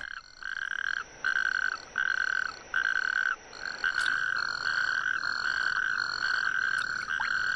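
Male natterjack toads calling: a series of separate calls, each about half a second to a second long with short gaps between, which merge into a continuous chorus about three and a half seconds in.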